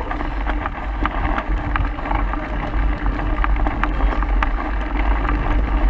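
Mountain bike ridden over a wet, rough dirt trail, recorded on the bike's action camera: a steady low rumble of wind and vibration on the microphone with frequent quick clicks and rattles from the bike over the ground.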